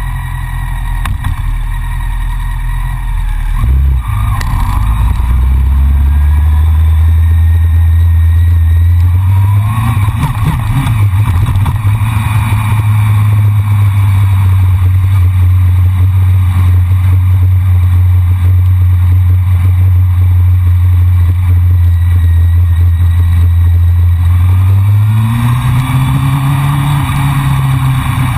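Honda CBR600F4i sport motorcycle's inline-four engine, heard from the bike itself, pulling away about four seconds in and picking up speed again around nine seconds, then cruising at steady revs with wind rushing past. The engine note rises and falls again near the end.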